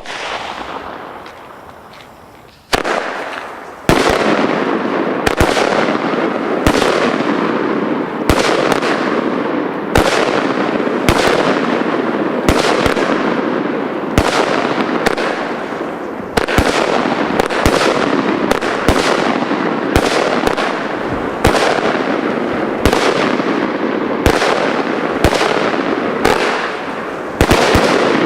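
Weco 'Godzilla' firework going off: a short hiss, then, about three seconds in, a rapid series of shots, about one or two a second, each trailed by dense crackling.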